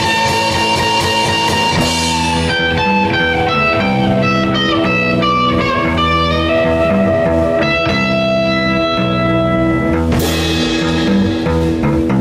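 Instrumental break of a rock band: a lead guitar line holding long notes that bend down and back up, over bass and drums, with no vocals.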